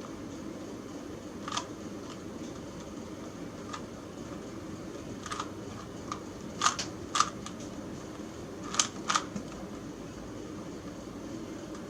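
Rubik's Cube faces being turned by hand, giving short sharp plastic clicks and snaps, some single and some in quick pairs, over a steady background hum.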